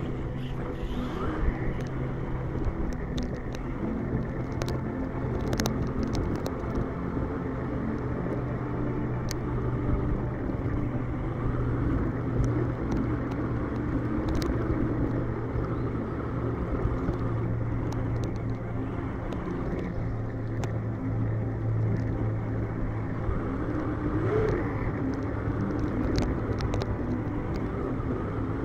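Axial Ryft radio-controlled truck driving over sand: a steady low drivetrain and motor hum, its pitch rising and falling a few times, with scattered sharp clicks, heard from a camera mounted on the truck.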